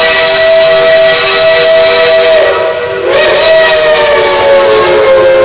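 Shay geared steam locomotive's chime whistle blowing a long, loud chord of several notes. It breaks off briefly about halfway through, then sounds again with its pitch sagging slightly lower.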